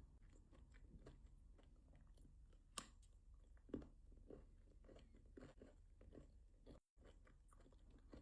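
Faint close-up chewing of milk chocolate with biscuit pieces in it, soft irregular crunches, with two sharper crunches about three and four seconds in.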